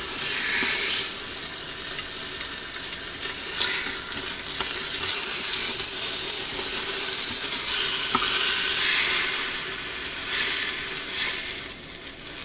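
Chicken breasts sizzling in the hot inner pot of an Instant Pot on sauté. The sizzle swells and eases, with a few light clicks.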